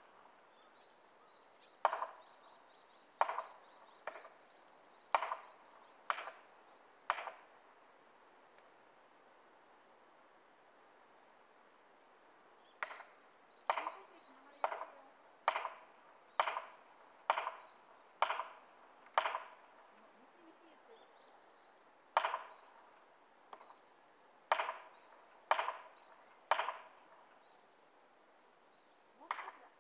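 Hard blows struck about once a second on a felling wedge driven into the cut of a tree, in runs of five to eight with pauses between. The wedges are being used to force over a tree whose hinge is too tough to let it fall. A steady high-pitched insect drone sits behind the blows.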